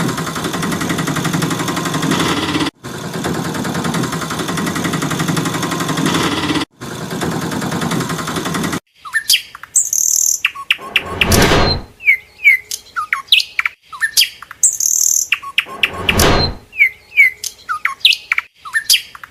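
A steady rattling engine sound that cuts out abruptly twice and stops about nine seconds in. It is followed by repeating bird chirps mixed with sharp clicks, in a pattern that loops about every five seconds.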